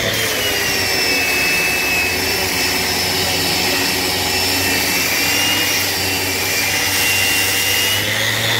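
Festool Rotex RO 150 random-orbit sander running under load in its coarse, gear-driven mode as it sands a wooden board: a steady whine that wavers slightly in pitch as it is pressed and moved over the wood.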